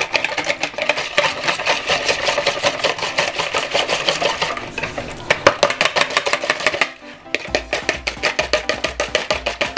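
Wire whisk beating egg in a plastic bowl: rapid, even clicking strokes of the wires against the bowl, several a second, with a short pause about seven seconds in.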